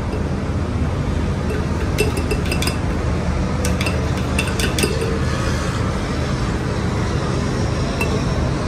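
Glassware and utensils clinking lightly now and then, a handful of sharp chinks mostly in the middle, over a steady low background rumble.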